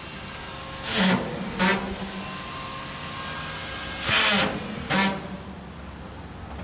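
Short bursts from a power tool on a construction site, coming in two pairs: two about a second in and two more about four seconds in, each a brief buzzing whir, over steady site background noise.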